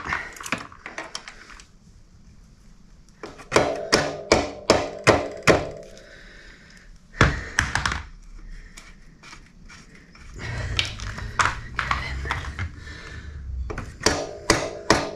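Mallet knocking on the lower mounting bolt of a motorcycle rear shock absorber, each knock leaving a short ring. About six quick knocks come a few seconds in, then a single one, then more near the end. The bolt won't line up with the swing-arm mount and is being knocked to force it through.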